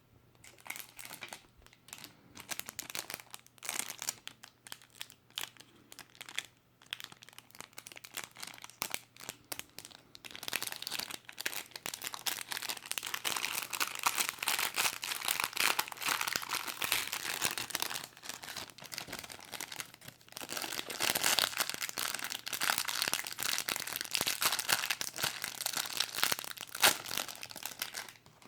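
Packaging being crinkled and handled by hand, with some tearing. It comes in short scattered crackles at first and runs almost without a break from about a third of the way in.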